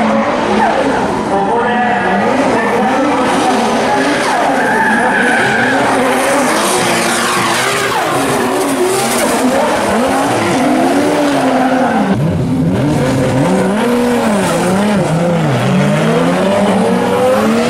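Two drift cars, a Nissan S15 and a Toyota JZX100, sliding in tandem: the engines rev up and down in quick swings over the squeal of the rear tyres. One car passes close about seven seconds in, its pitch dropping as it goes by.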